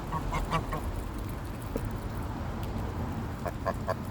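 Geese giving short calls in two quick runs, one at the start and one about three and a half seconds in, over a low steady rumble.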